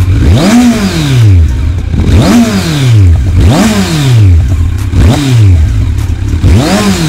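Kawasaki Z900's 948 cc liquid-cooled inline-four, revved through its stock exhaust in about five quick throttle blips. Each blip rises sharply and falls back to idle.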